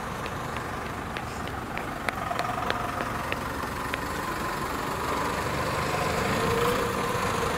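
Engine of a small decorated cab-over truck running at low speed as the truck rolls slowly past, growing gradually louder toward the end.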